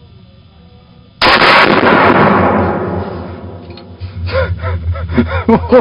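A single loud gunshot about a second in, its report dying away slowly over about three seconds.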